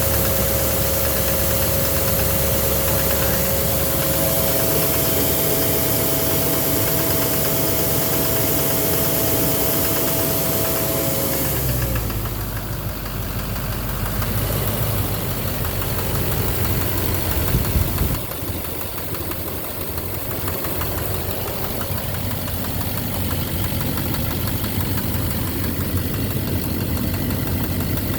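Duramax LMM 6.6-litre V8 turbo-diesel idling on a cold start. A steady whine rides over the engine for the first dozen seconds, then stops, and the engine note turns deeper and rougher.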